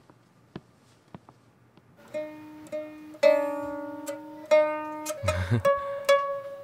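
Mandolin being played. After a couple of seconds of faint, evenly spaced ticks, single plucked notes begin. Then one note is picked rapidly and held, followed by more plucked notes.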